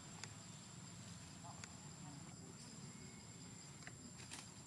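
Faint forest ambience: a steady high-pitched insect drone with a second, pulsing insect call beneath it, and a few sharp clicks, the loudest near the end.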